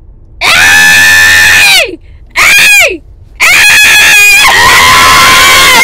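Three loud, high-pitched human screams: a long one, a short one that falls away, then another long held one. They are loud enough to clip the microphone.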